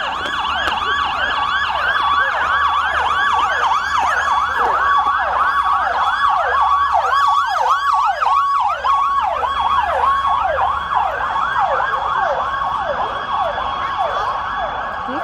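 Fire truck siren in fast yelp, a rapid rising-and-falling wail repeating about three times a second, with a steady held tone underneath.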